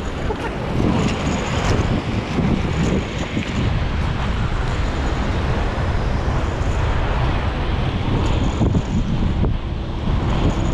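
Wind buffeting a moving microphone, a loud, steady rushing noise heaviest in the low end, as on a camera carried by a roller skater in motion.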